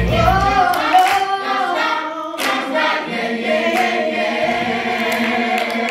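Choir singing long held notes, the voices unaccompanied after a low accompaniment drops away about a second in.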